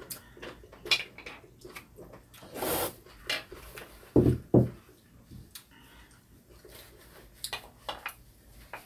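A spoon clinking and scraping against a soup bowl in scattered short knocks while soup is eaten, with a brief rush of noise about three seconds in and two duller knocks just after four seconds.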